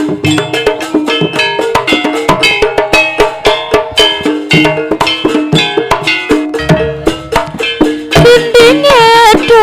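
Jaranan gamelan music: fast, even drum strokes over repeated pitched metal percussion tones. About eight seconds in, a wavering, bending melodic line comes in on top.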